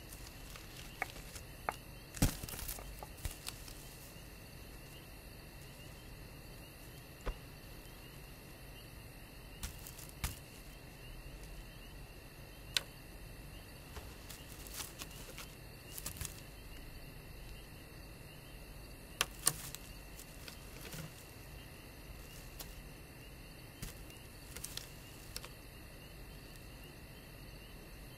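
Quiet background ambience: a faint steady hiss with a thin high tone, broken by scattered sharp clicks and knocks.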